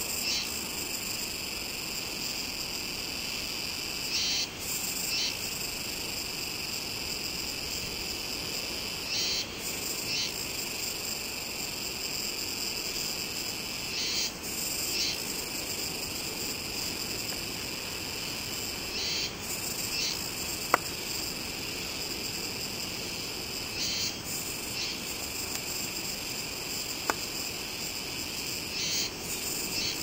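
Steady, high-pitched insect chorus that swells briefly about every five seconds, with two faint clicks in the second half.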